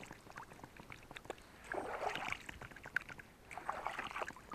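Water swishing and splashing beside a kayak in three strokes about two seconds apart, with small drips and clicks between them.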